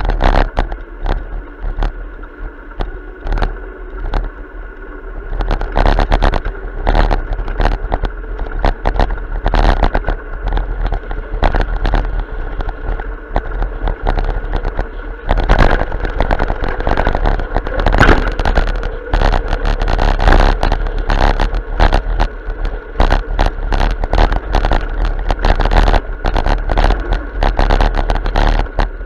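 Bicycle ride heard through a camera mounted on the bike: a constant stream of rattles and knocks as the bike jolts along the path, over a steady low rumble. The rattling grows louder and busier about five seconds in and again about halfway through.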